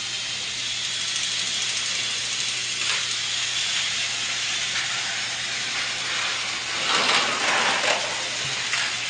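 Steady hissing noise over a faint low hum, with brief louder swells about three seconds in and again around seven seconds in.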